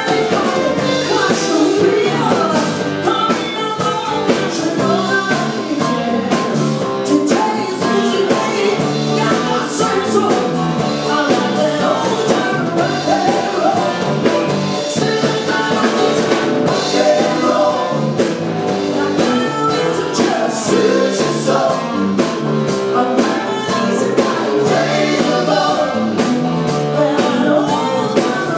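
A live band playing a rock-and-roll song with a singer, guitar and drums, heard loud and steady.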